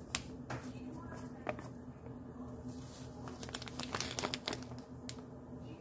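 Crinkling of a plastic-foil bag being handled and tipped to pour out its contents, with scattered sharp clicks and taps, the loudest a cluster about four seconds in, over a steady low hum.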